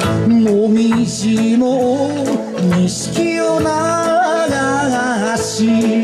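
Kawachi ondo folk song performed live: a male singer's wavering, ornamented voice over electric guitar and a steady beat.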